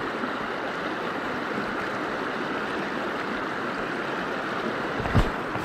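River water rushing steadily, with a single low thump about five seconds in.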